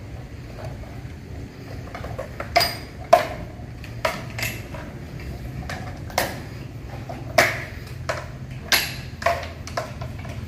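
Line-array loudspeaker cabinets with metal side frames knocking and clanking as they are handled and shifted: about ten sharp knocks, each with a short ring, starting a couple of seconds in. A steady low hum lies underneath.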